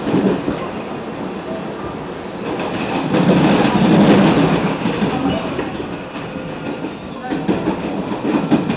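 PATH PA5 subway car running, heard from inside the car: a steady rumble and rattle of wheels on track that swells louder from about three to five seconds in.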